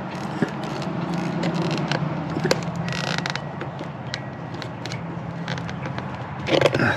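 Hands forcing a clamped rubber boot off a quad's carburetor: scattered small clicks, creaks and rubbing, with a brief scrape about three seconds in. A steady low hum runs underneath.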